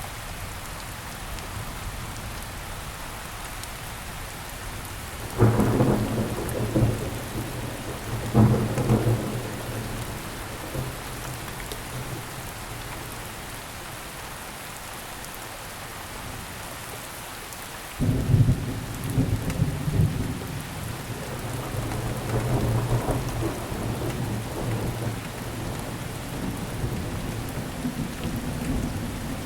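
Steady rain falling, with thunder: two sudden claps that rumble away, about five and eight seconds in, then a longer rolling rumble from about eighteen seconds on.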